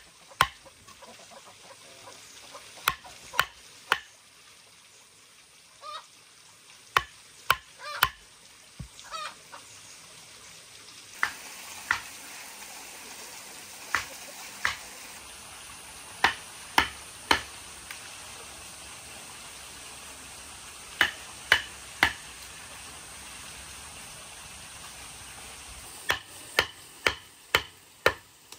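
Wooden mallet striking a chisel that cuts into wood: sharp knocks in quick runs of two to five, with pauses of a few seconds between runs.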